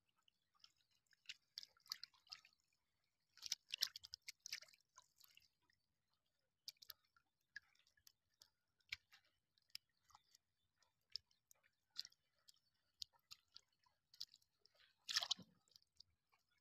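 Faint, scattered wet clicks and squelches of a hand working through mud and shallow water on a net, picking out small shrimp. There is a flurry of them about four seconds in and a louder squelch near the end.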